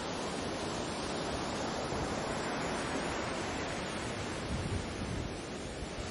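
Baltic Sea waves making a steady, even rush with no single breaking wave standing out, over a low rumble of wind.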